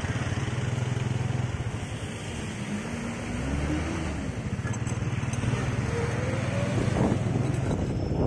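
Motorcycle engine running steadily while riding, under an even rush of wind and road noise.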